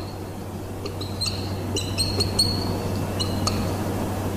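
A bird chirping repeatedly in the background: a string of short high chirps, some drawn out a little, stopping about three and a half seconds in, over a steady low hum.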